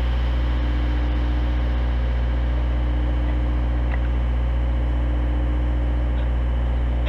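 Aerial boom lift's engine running with a steady low hum that does not change in pitch.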